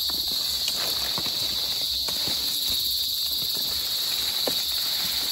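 A steady, high insect drone, with scattered short crackles and rustles of dry palm fronds being pulled and shifted.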